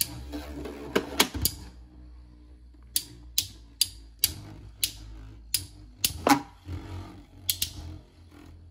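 Two metal Beyblade spinning tops, Fang Leone 130W2D and Proto Nemesis, battling in a plastic stadium. They give sharp clacks at uneven spacing, about fifteen in all, as they clash with each other and knock against the stadium walls.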